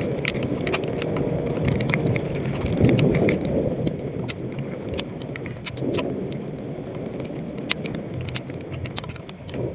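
Rain spattering, with many sharp scattered drop hits over a steady low rumble of wind and road noise.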